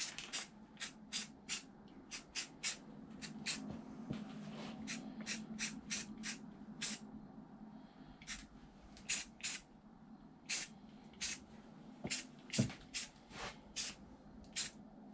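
Aerosol spray-paint can giving many short spritzes of hiss, several a second at first and then spaced out with pauses, plus a single sharper knock late on.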